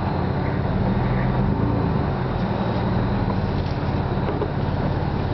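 Truck engine running low and steady as the truck creeps slowly backward.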